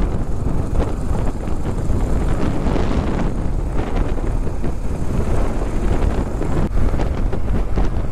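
Wind rushing over the microphone of a BMW R 1250 GS Adventure on the move, with the bike's boxer-twin engine running low underneath. A steady, unbroken noise with a few faint knocks.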